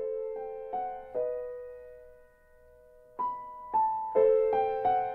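Background piano music: a few soft notes in the first second that ring on and fade, then after a lull of about two seconds a steadier run of notes.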